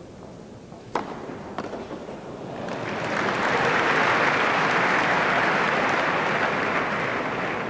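Two sharp tennis-ball hits about half a second apart, then crowd applause that swells up and holds for several seconds before easing off near the end.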